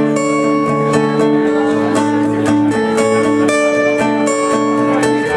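Acoustic guitar strumming chords in an instrumental passage with no singing.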